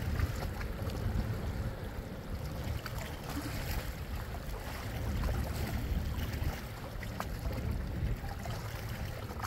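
Low rumble of a motor yacht's engines as it heads away across the water, mixed with wind buffeting the microphone.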